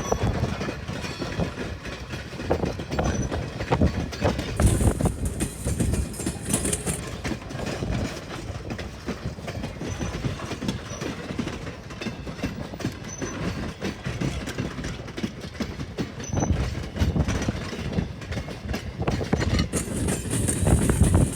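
Train running on the tracks, its wheels clacking over the rail joints over a steady rumble.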